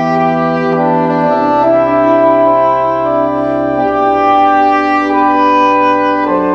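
Choir singing slow, held chords, the whole chord moving to a new one about a second and a half in, again around four seconds, and just before the end.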